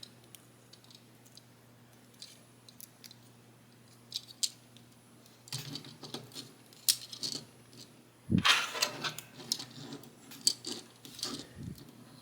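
Hard plastic action figure and its small Matrix accessory being handled: scattered light clicks at first, then denser clicking and rattling of plastic parts, loudest about eight seconds in.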